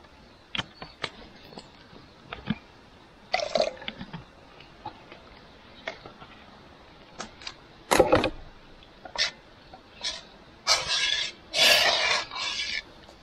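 Handling noises of camp cooking: scattered clicks and knocks of a pan and utensils, with one louder knock about eight seconds in and a few seconds of rushing noise near the end.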